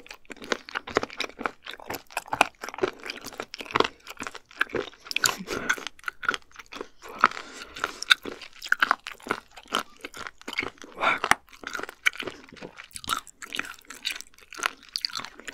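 Close-miked chewing and crunching of firm abalone flesh, one short crunch after another in an irregular rhythm.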